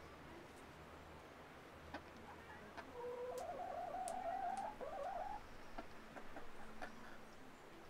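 A chicken's drawn-out, wavering call lasting a couple of seconds, starting about three seconds in, over scattered faint clicks and a low steady hum.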